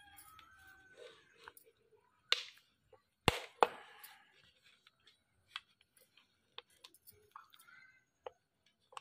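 A few sharp knocks and clicks: one about two and a half seconds in, a louder pair close together a little past three seconds in, and softer ticks scattered after.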